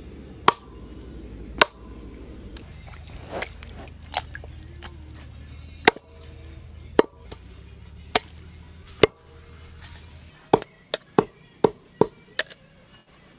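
Chopping on a cutting board: single sharp knocks of the blade spaced about a second apart, then a quick run of about six strokes near the end.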